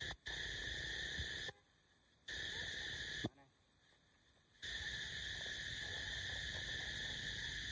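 Steady high-pitched insect drone with outdoor background rumble, cutting in and out abruptly several times, and a single sharp click a little past three seconds in.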